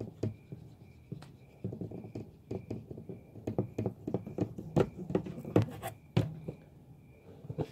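A marker scratching on a small white board as an answer is written, with many irregular taps and clicks from the pen and the board being handled.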